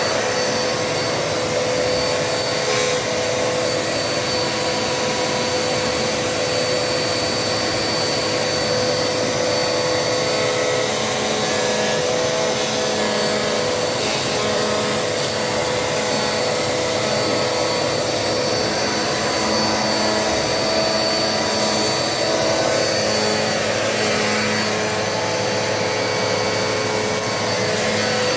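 Dirt Devil Multi-Surface vacuum cleaner running steadily while picking up dirt from a kitchen floor, a constant motor and airflow noise with a steady high whine.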